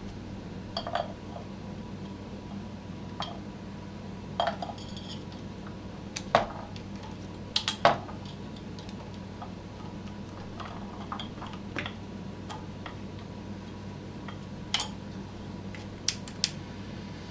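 Metal hand tools and parts being picked up and set down, giving a scattered series of sharp clinks and clanks, the loudest in the middle, over a steady low hum.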